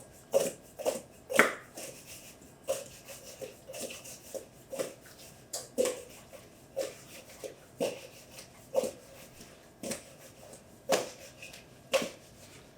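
Sliced peach wedges being tossed in a bowl with cinnamon and sugar: soft repeated knocks and rubs, about one or two a second.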